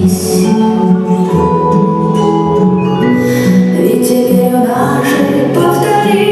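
Music with layered held notes and a moving melody.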